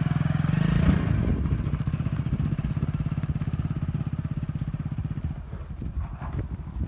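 Hero Splendor motorcycle's single-cylinder four-stroke engine pulling away, revving up just before a second in and then running steadily. It fades from about five seconds in as the bike rides off.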